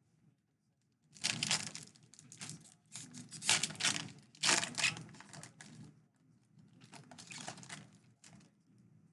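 A foil baseball card pack wrapper being torn open and crinkled, in several rustling bursts for about seven seconds.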